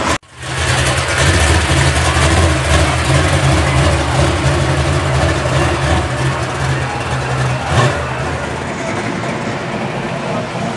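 Chevelle SS's V8 engine running with a deep, steady exhaust note as the car drives slowly past, the sound dropping off after about eight seconds as it moves away.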